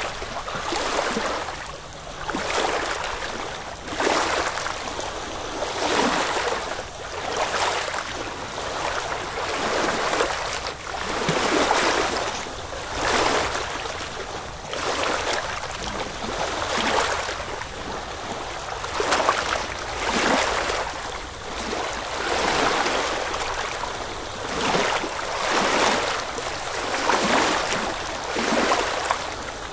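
Small sea waves washing on the shore, a hiss that swells and fades about every one to two seconds.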